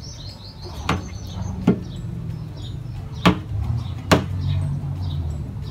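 Plastic bottles filled with glue being turned upside down and set down on a table: four sharp knocks of plastic on the tabletop over a low, steady background hum.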